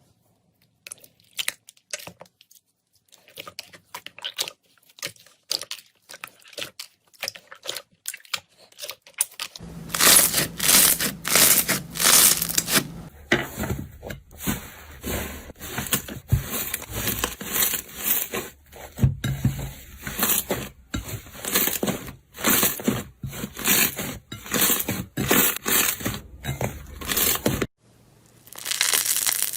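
Slime being squeezed and pressed by hand, giving rapid crackling and popping clicks. Sparse and quiet at first, then much louder and denser about a third of the way in.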